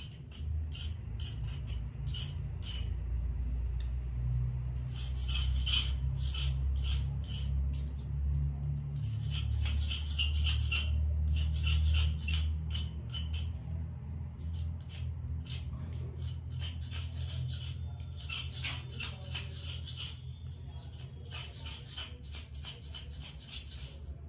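Small knife blade shaving a thin bamboo kite spine: quick runs of short, dry scraping strokes with brief pauses between them, over a steady low hum.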